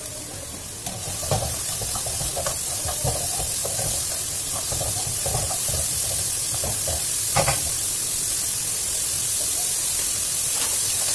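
Diced carrots, onion and garlic frying in oil in a wok: a steady sizzle that picks up about a second in, with the irregular scrape and tap of a slotted spatula stirring the vegetables around the pan.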